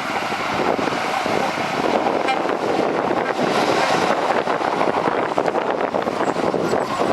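Heavy earthmoving machinery at work: a diesel engine running steadily under dense rattling and clanking.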